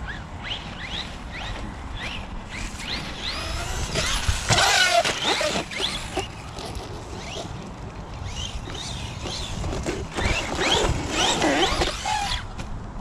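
Team Associated Rival MT10 RC monster truck's electric motor whining up and down in short throttle bursts. There are louder, noisier rushes about four seconds in and again about ten seconds in.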